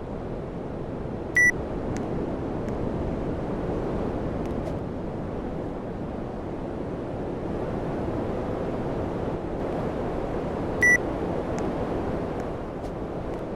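Panasonic air conditioner running with a steady rush of air, and two short electronic beeps from the unit about nine seconds apart.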